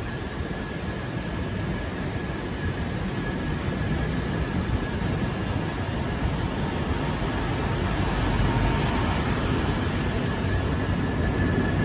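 SNCB electric locomotive hauling double-deck coaches past along the platform: a steady rumble of wheels on rails, slowly growing louder, with a thin steady high whine running through it.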